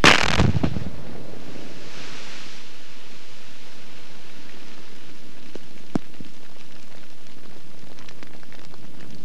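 Rock blast in a quarry detonating: one sharp, loud bang with a few quick cracks following in the first half second. Then a steady hiss as rock and dirt rain down, with scattered clicks of stones landing and a sharper crack about six seconds in.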